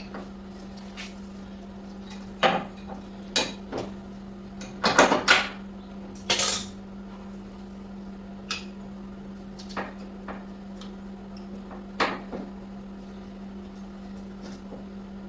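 Metal hand tools and parts clinking and clanking irregularly, loudest in a quick cluster about five seconds in, over a steady low hum.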